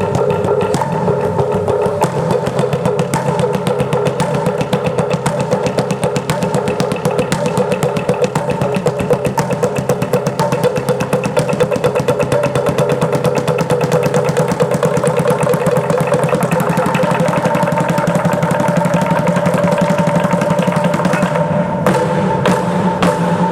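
Maya tunkules (hollow-log slit drums) played together in a fast, continuous roll, the rapid strokes merging into a buzzing drone on a few steady pitches. The playing stops abruptly at the very end.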